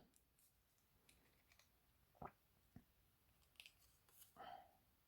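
Near silence, with a few faint short taps and a soft rustle from die-cut cardstock pieces being handled.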